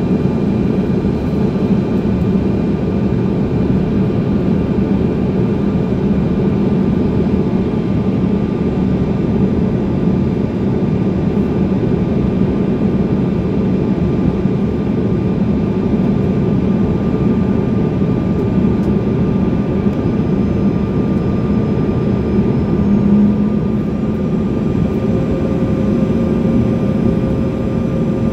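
Steady drone of a small passenger plane's engines and airflow heard from inside the cabin in flight, with faint steady whines over it; a further faint tone joins near the end.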